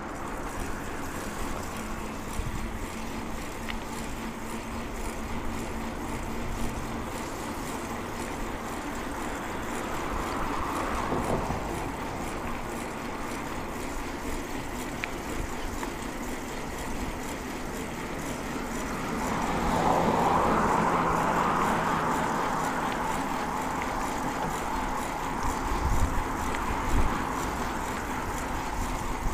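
Steady rolling and wind noise of a bicycle ride on a clip-on lavalier mic. It swells louder twice, briefly about ten seconds in and more strongly around twenty seconds in, and a few low thumps come near the end.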